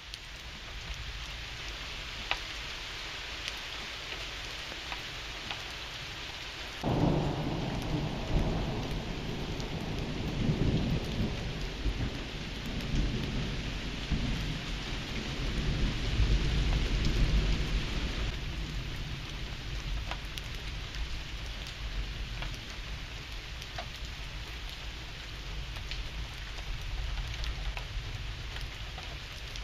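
Steady rain falling, with thunder breaking in suddenly about seven seconds in and rumbling on for about ten seconds, deepest near the middle, before fading back under the rain.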